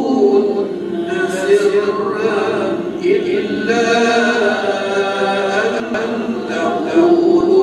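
A man reciting the Quran aloud in a melodic chant, with long held notes that bend up and down, heard through a microphone.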